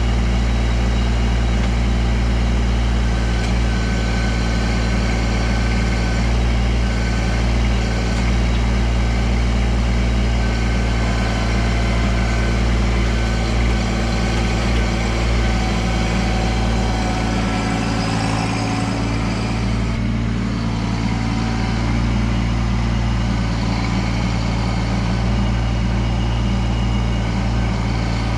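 Kubota LX2610 compact tractor's three-cylinder diesel engine running steadily.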